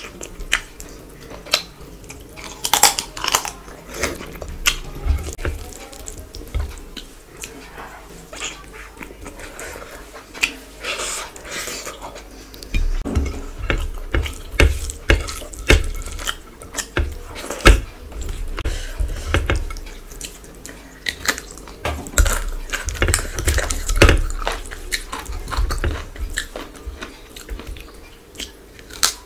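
Close-miked eating sounds: chewing and wet lip smacks from mouthfuls of rice and chicken curry eaten by hand, with fingers squelching and mixing food on the plate. The clicks and smacks come irregularly and grow busier about halfway through.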